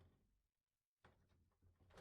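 Faint horror sound effect: the last of a rapid knocking dies away in the first half-second. After a short pause, a low, faint sound with light ticks starts about a second in and swells toward the end, the start of a door sound.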